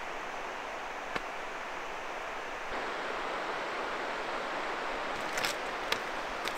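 Steady rushing of a river, an even wash of water noise, with a few faint clicks about a second in and near the end.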